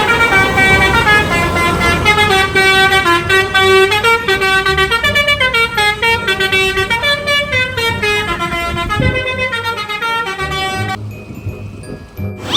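Bus 'telolet' musical air horn playing a multi-note tune, its pitch stepping from note to note, stopping about eleven seconds in.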